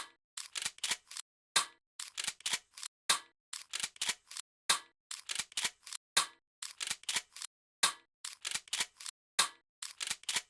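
Crisp, dry clicks repeating in a strict loop: a single click, then a quick run of about four, every one and a half seconds or so.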